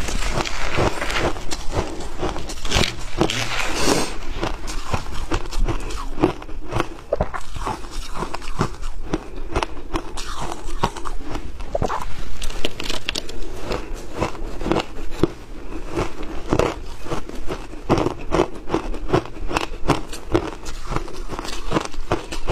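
A person crunching and chewing mouthfuls of frozen shaved ice close to a clip-on microphone: a dense, continuous run of crisp cracks and crackles.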